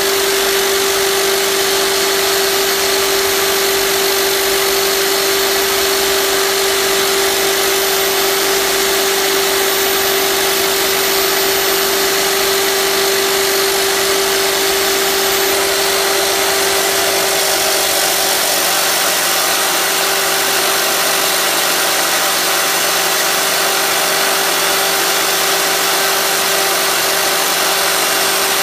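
A power tool's electric motor running steadily at constant speed: a steady hum under a strong, even hiss.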